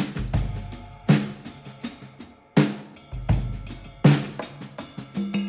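Drum-driven background music: a drum kit beat with hard snare and bass-drum hits about every second and a half over a deep bass line.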